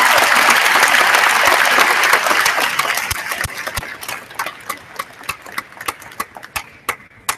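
Audience applauding, the full applause fading after about two and a half seconds into a few scattered single claps that stop near the end.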